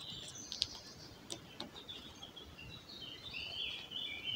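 Woodland birds singing: short, high chirping phrases that grow busier toward the end, with a few faint sharp clicks in the first couple of seconds.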